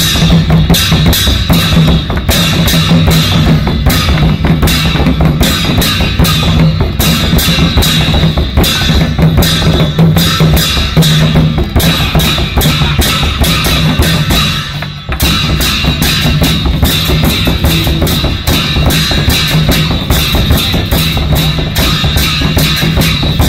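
Ansai waist drums, small drums slung at the hip, beaten fast and hard by a troupe of dancers in dense, continuous drumming, with cymbals ringing over it. The playing breaks off for a moment about fifteen seconds in.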